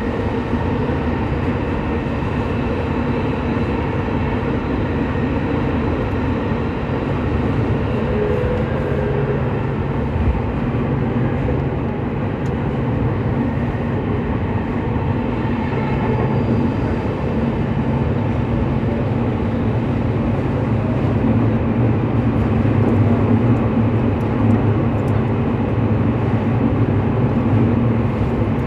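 Running noise of a JR E231-800 series motor car, recorded directly above the traction motors while the train runs between stations in a subway tunnel: a steady rumble of wheels and motors with a faint hum, growing a little louder over the last third.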